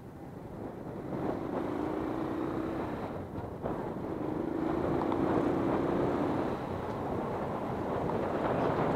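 Honda CB125 motorcycle engine running on the move, with wind buffeting the microphone; the sound builds over the first second or so as the bike gathers speed.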